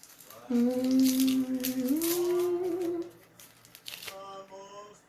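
A woman humming: one long note, then a step up to a higher held note, and a shorter higher note near the end. Packaging crinkles and clicks between the notes.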